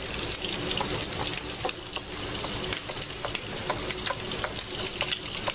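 Boneless pork steaks sizzling steadily as they brown in a frying pan, with scattered light taps and scrapes of a knife pushing diced onion off a cutting board into a bowl.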